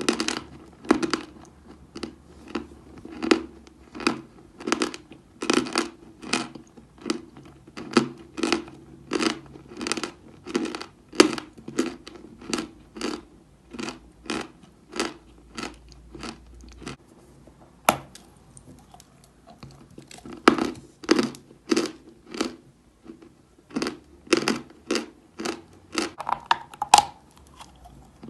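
Chalk crunching close up: sharp, crisp crunches at about two a second, with a few seconds' lull and a single click in the middle before the crunching picks up again.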